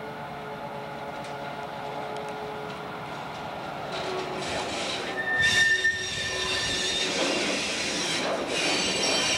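Steel wheels of a slow-moving freight car squealing on the rails over the rumble of the rolling train, several steady high-pitched tones at once. A sharper squeal rises about five and a half seconds in, and the squealing grows louder near the end.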